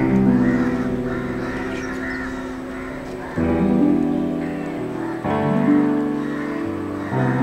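Background music: held chords that change sharply about every two seconds, with a wavering melody line above them.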